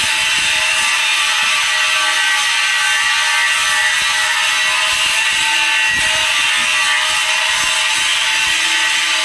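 Welding arc on a pipe joint, hissing and crackling steadily without a break.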